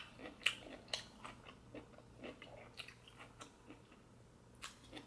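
A person chewing food close to the microphone: soft, irregular wet clicks and smacks of the mouth.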